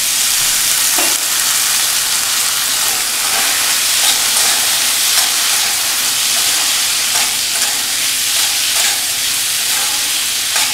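Boiled chickpeas sizzling in hot mustard oil and fried spice masala in a metal wok, stirred with a wooden spatula: a steady loud frying hiss with scattered light scrapes and clicks of the spatula.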